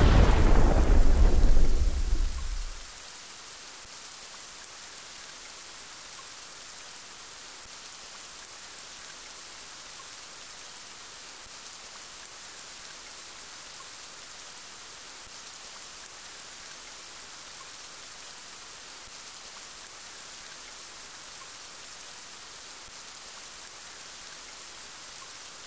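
A thunderclap already under way at the start, rumbling and dying away over the first two to three seconds. After it, steady rain hisses evenly.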